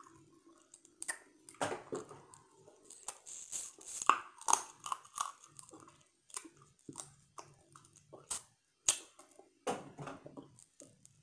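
Close-up eating sounds of boiled blue crab: chewing and biting at pieces of crab leg, with irregular clicks and crunches of shell throughout.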